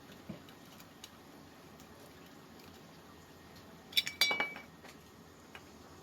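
Metal clinking from hand tools and bolts: a couple of faint clicks, then a quick cluster of loud, ringing metallic clinks about four seconds in.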